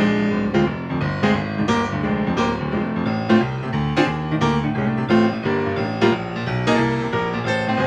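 Blues piano music played at a steady, lively pace, quick notes over a repeating bass line.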